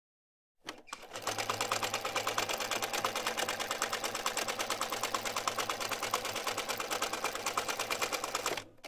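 Electric sewing machine running at a steady speed, the needle stitching in a rapid, even rhythm over a low motor hum. It starts just under a second in and stops abruptly near the end.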